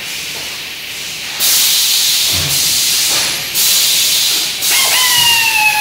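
Pneumatic machine venting compressed air: three long hissing bursts, starting about a second and a half in. During the last burst a whistling tone comes in and falls slightly in pitch.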